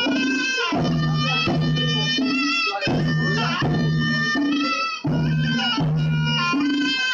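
Loud traditional folk dance music: a shrill reed wind instrument plays a sustained, ornamented melody over drums and low held notes, in a phrase that repeats about every two seconds.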